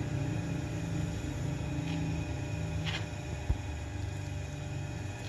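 A steady low mechanical hum, like a motor running, with one sharp knock about three and a half seconds in.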